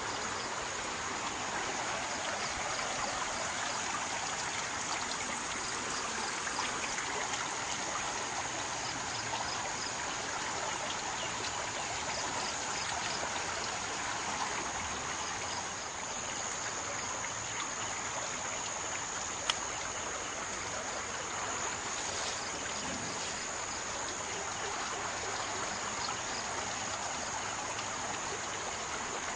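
Floodwater of the swollen Daduru Oya river rushing past in a steady, even noise, with a thin steady high-pitched tone above it and a single sharp click about two-thirds of the way through.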